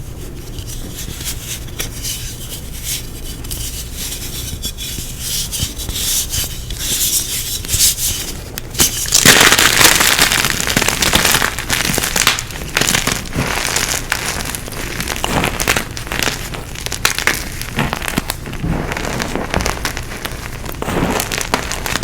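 Gym chalk being crushed, with a dense crunching and crackling that swells into its loudest stretch about nine seconds in, then eases.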